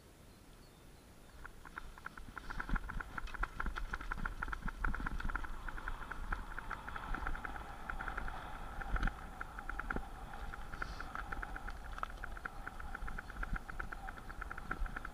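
Mountain bike coasting down a rough dirt trail: a fast, continuous ticking from the rear hub freewheel starts about a second and a half in, mixed with rattles and knocks over bumps and a low wind rumble on the microphone.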